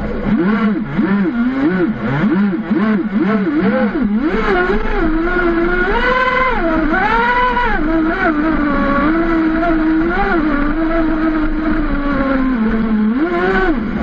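M41 RC speed boat's motor, heard from on board. Its pitch swings up and down quickly with the throttle for the first few seconds, then it runs steadier with a few slower rises and falls around six to eight seconds in.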